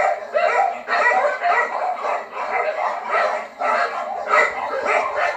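Dog barking and yapping in quick succession, several barks a second with hardly a pause between them.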